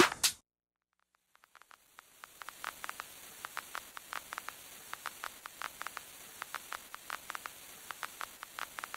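Electronic house music cuts off abruptly at the start, followed by a brief silence. Then a faint steady hiss with irregular crackling clicks, several a second, sets in and continues.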